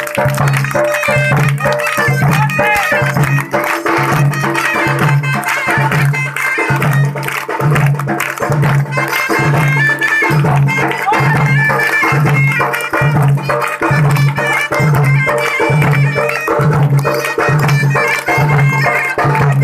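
Odia danda folk-dance music: a reed wind instrument plays a melody over a deep drum beat that falls a little faster than once a second.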